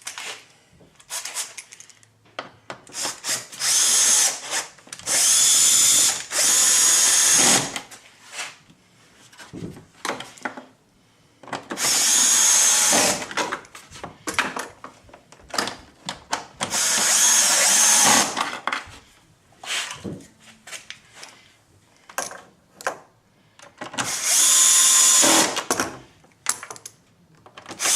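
Bosch 9.6-volt cordless screwdriver driving T30 Torx screws, in about five short runs of a motor whine of one to two seconds each, with a sixth starting at the very end. Clicks and knocks from handling the screws and parts come between the runs.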